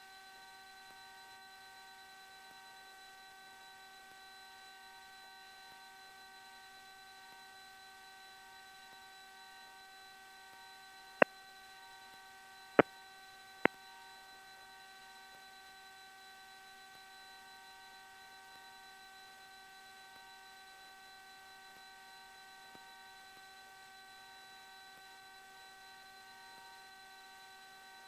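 Steady electrical hum of several fixed tones in an aircraft intercom audio feed, with three short sharp clicks about eleven, thirteen and fourteen seconds in.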